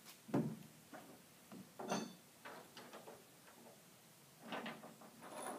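Scattered knocks and clatter of kayak-rack hardware being handled at a pickup's tailgate: a sharp knock about half a second in, another about two seconds in, and a run of clatter near the end.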